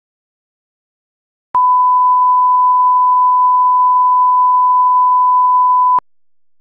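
Videotape line-up test tone: the standard 1 kHz reference tone that goes with colour bars, one steady unwavering pitch. It starts about a second and a half in and cuts off sharply about six seconds in.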